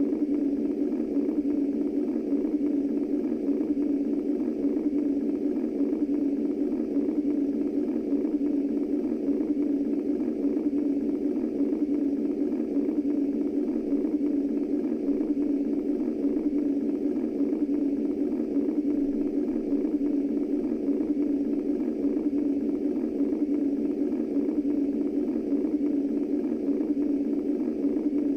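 Womb-style white noise for soothing babies: a steady, low rushing hum with no pauses or changes.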